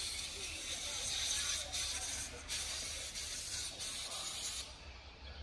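A steady hissing noise in about four stretches, each separated by a very short break, cutting off shortly before the end.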